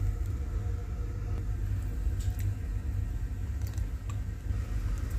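A steady low rumble with a few faint, brief clicks.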